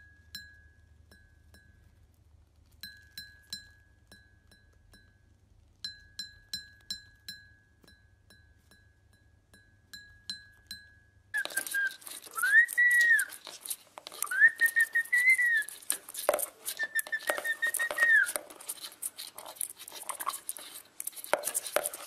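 Groups of short ringing pings at one pitch, each dying away quickly, as a cockatiel taps a porcelain cup with its beak. About eleven seconds in this gives way to louder rattling and scrabbling as a parrot rummages among toys in a plastic bucket, with three whistled notes that rise and fall.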